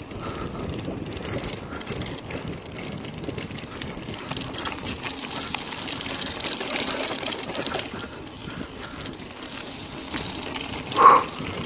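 Mountain bike rolling over a gravel dirt road: steady tyre and ride noise, with the hiss growing stronger around the middle. Near the end comes one short, loud tone.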